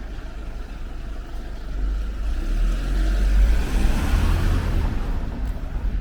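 A motor vehicle passing close by on a city street, its sound swelling over the first few seconds and peaking a little past the middle, over a steady low rumble.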